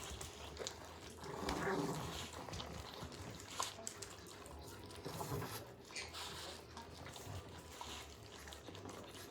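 Dogs licking salmon paste off rubber lick mats: faint wet lapping with small clicks, and a brief low vocal sound from a dog about one and a half seconds in.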